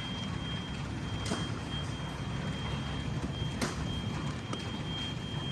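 Building fire alarm sounding a steady, high-pitched electronic tone over a low background rumble, with a few faint knocks: the alarm system has just gone into alarm during testing.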